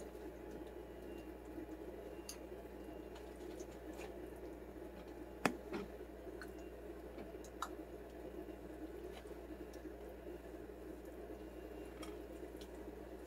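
Spatula stirring a thick, creamy chicken-and-cheese-sauce mixture in a stainless steel pan: faint squishing with scattered light clicks of the spatula against the pan, one sharper knock about five and a half seconds in.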